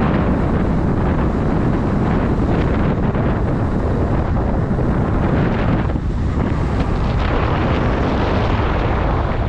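Wind rushing over an action camera's built-in microphone on an electric enduro bike moving at speed: a loud, steady rush with a brief dip about six seconds in.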